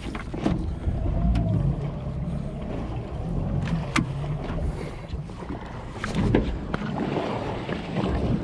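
Wind buffeting the microphone over an uneven low rumble of water against a small boat's hull, with scattered sharp clicks and knocks.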